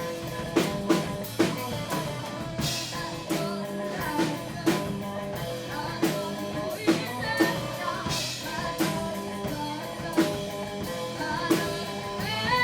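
Rock band playing with drum kit, bass, guitar and a singing voice, the drums keeping a steady beat.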